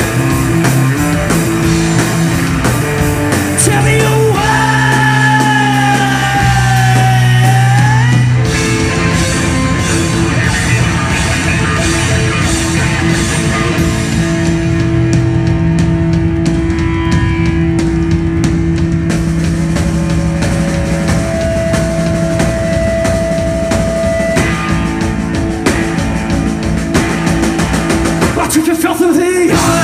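Live rock band playing loudly: electric guitar, electric bass and a drum kit with cymbals, with long held notes through the middle.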